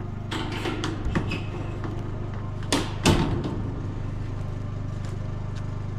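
A bear door being swung shut and latched: several knocks and rattles in the first half, with the loudest bang about three seconds in. Under it, the steady hum of a running Honda generator.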